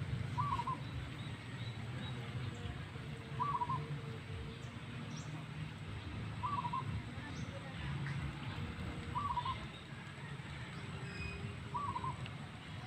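A bird giving a short call five times, about every three seconds, over a low steady background hum.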